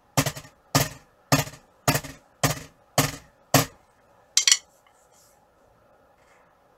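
Drumstick tapping an electronic drum kit with no sound coming from its module, so only the dry click of stick on pad is heard. About two evenly spaced hits a second, seven in a row, then a quick double hit about four and a half seconds in, and the tapping stops.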